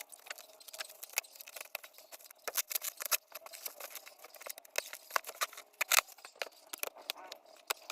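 Shipping parcel being cut and torn open: irregular sharp crackles and snips of plastic wrapping and packing tape, with a few louder snaps about three and six seconds in.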